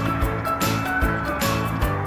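Background music with a steady beat, about two strokes a second, over held notes.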